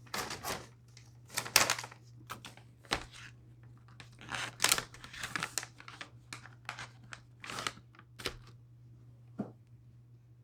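A bag of soft-baked dog treats being torn open and handled, a run of irregular rips and crinkles that stops near the end.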